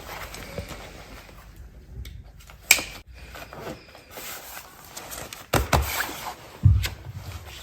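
A few indoor knocks and thumps: a sharp click nearly three seconds in, then two heavy, deep thumps a second apart near the end.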